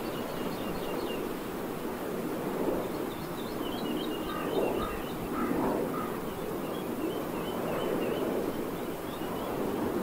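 Distant wind turbines making a steady whooshing noise that swells and fades gently. Small birds chirp in short bursts over it, mostly in the middle and later part.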